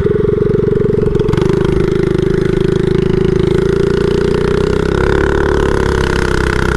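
Mini bike's small engine running loud through a stage 1 setup with an aftermarket exhaust, holding a steady high speed while the bike is ridden. Its note shifts slightly about five seconds in.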